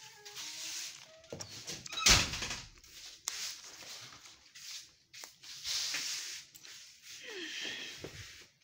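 Rustling and handling noise from a handheld camera moving around a small room, with one loud thump about two seconds in.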